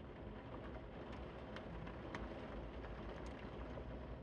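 Steady rain falling: an even hiss over a low rumble, with scattered drips ticking about twice a second.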